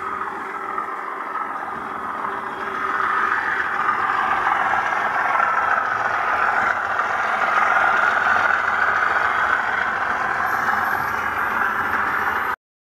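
Class 37 diesel engine sound from a DCC sound decoder, played through the OO gauge model locomotive's small on-board speaker as the model runs along the track. It gets louder about three seconds in, holds steady, then cuts off suddenly near the end.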